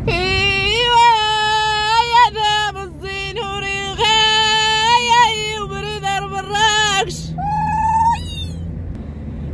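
A woman singing tamawayt, the unaccompanied Amazigh chant of the Middle Atlas: long, high, wavering held notes with short breaks and gliding ornaments, and no instruments. A car's low driving rumble runs underneath.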